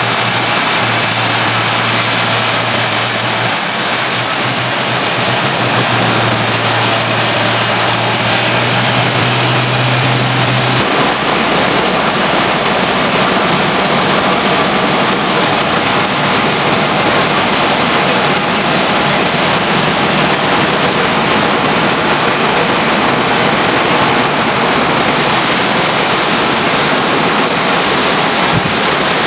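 Sawmill machinery running, a loud and even noise throughout, with a low steady hum that stops about eleven seconds in.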